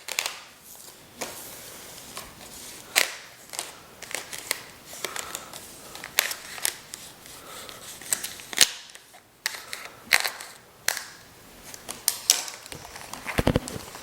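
Cardboard and plastic packaging being handled and opened: irregular sharp clicks, snaps and crinkles, some louder than others.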